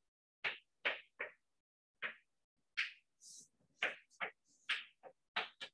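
Chalk writing on a blackboard: about a dozen short taps and scrapes in an uneven run as letters are written, with one softer hissing stroke about three seconds in.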